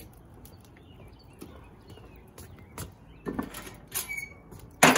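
Cookware and utensils clattering as they are handled and set down: a few knocks and scrapes from about three seconds in, ending in one loud clank just before the end.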